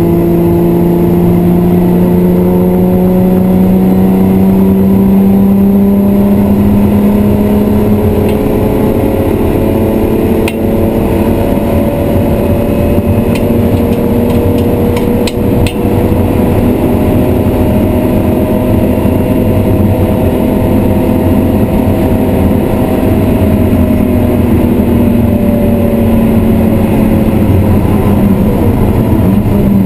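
BMW E36 M3's 3.0-litre straight-six running under load, heard from inside the cabin. Its pitch climbs slowly through a long pull on a straight and levels off near the end. A few sharp clicks come around the middle.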